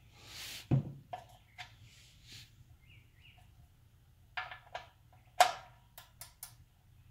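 A wrench snugging the oil drain plug on a 2012 Infiniti QX56's oil pan: scattered sharp metal clicks and clinks, some with a short ring, the loudest about a second in and again about five and a half seconds in, as the hand-tightened plug is given a little torque.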